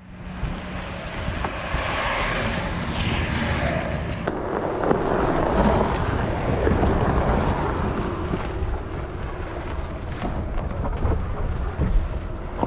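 Steady rushing noise of wind on the microphone mixed with the tyres of a Rivian R1T electric pickup rolling over gravel, shifting in character about four seconds in.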